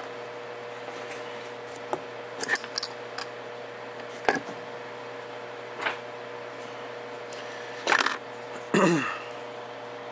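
Scattered clicks and knocks of small parts being handled at a workbench, over a steady hum with a faint held tone. Near the end comes a louder knock, then a brief sound falling in pitch.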